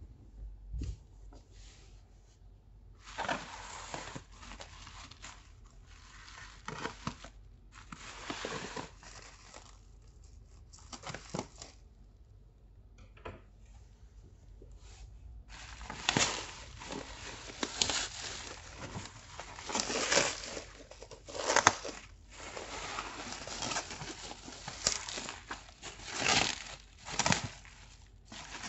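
Black plastic bubble-wrap packaging being handled and pulled open: irregular crinkling and rustling of plastic, sparse at first and busier and louder from about halfway through.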